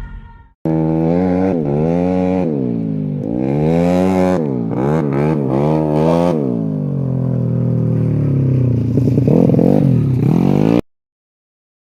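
Race-prepared automatic scooter engine revved in a series of throttle blips, its pitch rising and falling several times in quick succession, then running steadier at lower revs before cutting off suddenly near the end.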